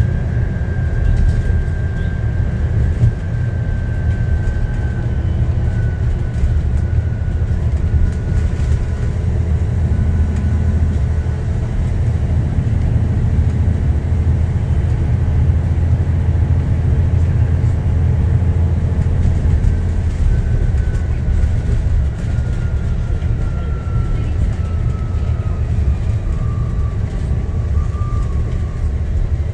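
ADL Enviro400 MMC double-decker bus heard from inside on the move: a loud, steady engine and road rumble, with a thin high whine that slowly falls in pitch at the start and again later on.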